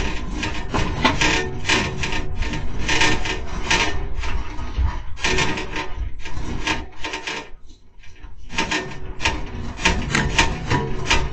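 Shop fittings and building rattling and creaking as they shake in a strong earthquake: dense clattering and scraping over a constant low rumble, easing briefly about eight seconds in.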